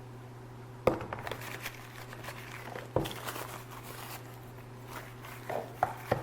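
Close handling of a knife and its leather sheath: a few sharp knocks, with crinkly rustling between them.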